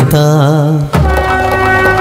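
Recorded dance music: a singer's held, wavering note ends about a second in. It gives way to a steady sustained instrumental tone over deep bass.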